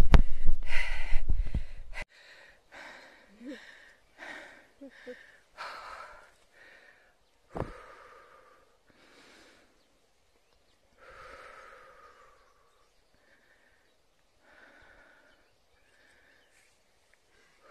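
A person breathing hard in short puffs, about one a second at first, then fainter and further apart. A low rumble on the microphone runs under the first two seconds and stops suddenly.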